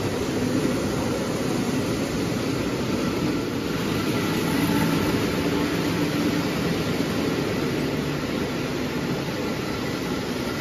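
O gauge tinplate electric toy train running on the three-rail layout track, a steady rumble of wheels and motor.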